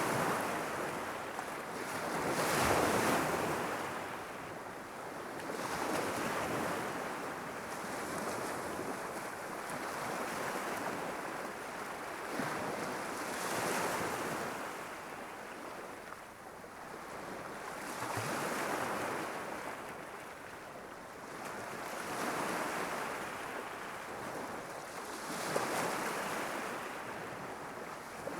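Gentle waves of the Irish Sea lapping and washing on the shore, a steady hiss that swells and ebbs every few seconds.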